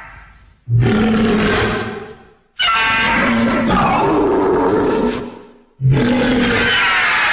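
Anguirus monster roar sound effects: three pitched, raspy roars of about two seconds each, each starting suddenly and fading out, the third still sounding at the end.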